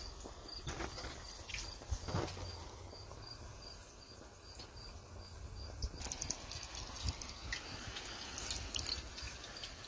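A cricket chirping in an even, high pulse about three times a second. From about six seconds in, hot frying oil crackles and spits.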